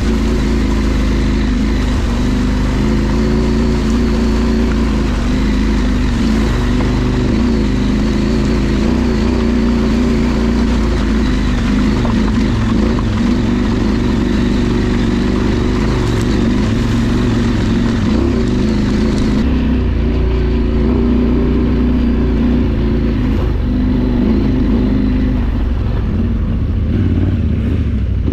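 Adventure motorcycle engine running steadily as the bike rides an off-road trail, its pitch shifting slightly with the throttle.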